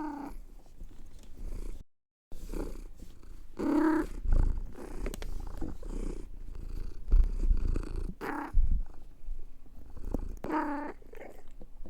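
Domestic cat purring, breaking into four short pitched vocalizations at intervals: a 'talking' cat. About two seconds in the sound drops out briefly.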